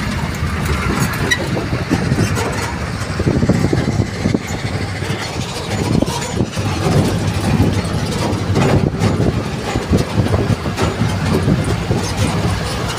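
Motor vehicle engine and road noise heard from inside the cab while driving over a rough gravel road, a steady low rumble broken by frequent irregular knocks and rattles.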